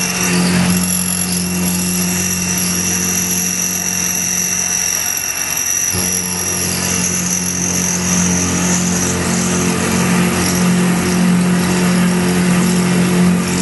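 X2 mini milling machine running steadily, its spindle motor humming with a high whine over it as the end mill cuts the aluminium bracket. The low hum drops out briefly about halfway through.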